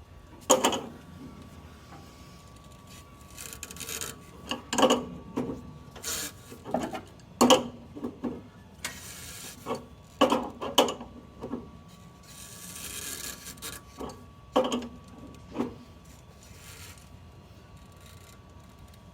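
Hand tools and metal engine parts clinking, knocking and scraping at irregular intervals, with a few longer rasping rubs, as the engine is worked on to bring it to top dead centre. A faint steady high hum runs underneath.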